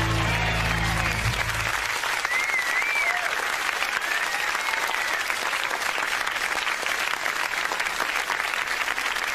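The band's final sustained chord stops about two seconds in, and the audience breaks into applause, with a few whistles early in the clapping.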